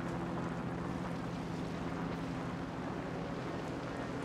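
A boat's engine running steadily: an even low drone with a few constant humming tones.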